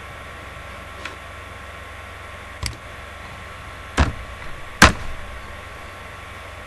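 A few sharp computer mouse clicks, single and spaced out, the loudest two about four and five seconds in, over a steady electrical hum.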